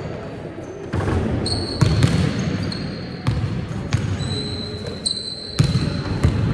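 Basketball being dribbled and passed on a sports hall floor, sharp bounces every second or so, with several short high squeaks of trainers on the court.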